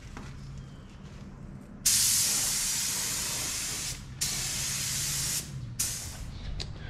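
Compressed-air paint spray gun spraying single-stage urethane paint onto a boat hull. It comes as three triggered bursts of hiss: about two seconds, then about a second, then a short one near the end.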